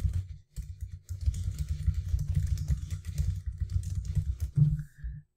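Typing on a computer keyboard: a quick, uneven run of keystrokes with a short break about half a second in.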